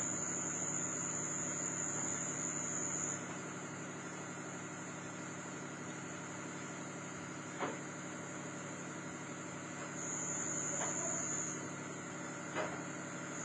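Steady background hum with a high, thin whine that stops about three seconds in and returns briefly near the end, and three faint clicks.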